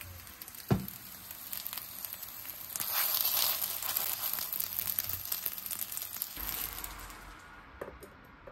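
Winged gyoza frying in oil in a nonstick frying pan, a dense sizzling crackle that swells louder in the middle and dies down near the end. A single sharp knock about a second in.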